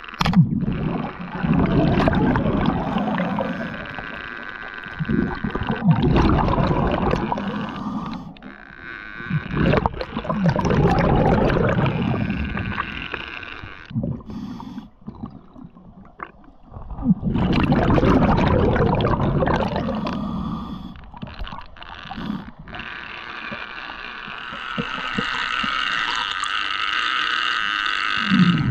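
Underwater bubbling rumble in bursts of two to three seconds, about every five or six seconds, from a diver's exhaled breath through a scuba regulator; a higher, steadier hiss comes near the end.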